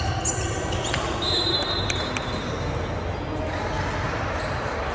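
Basketball game in a gym: the ball bouncing on the hardwood court, a high squeak lasting about a second from a little after the start, and background voices echoing in the hall.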